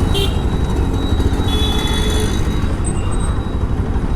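Motorcycle riding at speed: engine running under the steady rumble of wind buffeting the microphone.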